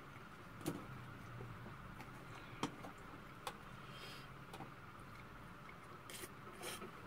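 Wooden spoon mixing rice in a stainless steel bowl, with a few sharp clicks of the spoon against the metal. Near the end, mouth sounds of taking a bite.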